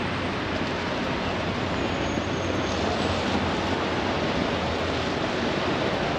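Steady hiss of a wet city street in the rain, with a low hum of traffic underneath.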